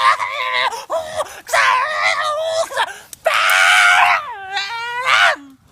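A person screaming at the top of their voice in several long, high-pitched, wavering screams. The last scream slides down in pitch and back up, then cuts off suddenly.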